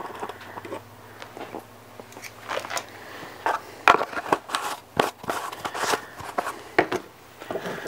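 Scattered light clicks and knocks of plastic spice jars and a metal measuring spoon being handled and set down on a wooden cutting board, irregularly spaced, the loudest about four seconds in, over a faint low hum.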